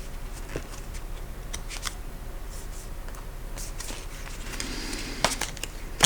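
Tarot cards being handled and shuffled: scattered soft clicks, a brief swish of cards about four and a half seconds in, then a sharper snap of a card.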